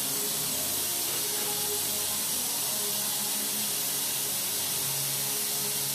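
A steady hiss with faint low hum tones underneath.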